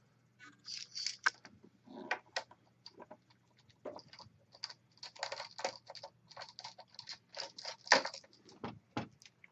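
Phillips screwdriver removing the small screws that hold a laptop's LCD panel in its lid: irregular light clicks and scratchy ticks of the driver tip and screws, with one sharper click about eight seconds in.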